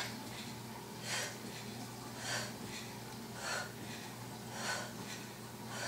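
A woman breathing hard from exertion during sandbag squat jumps, with a sharp, hissing exhalation a little over once a second, about six in all, in time with the jumps.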